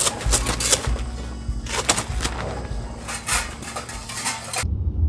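Rustling and clattering of tent fabric and clear urethane window panels being handled and folded as a tent is taken down. Near the end this gives way to a steady low rumble of a car cabin on the road.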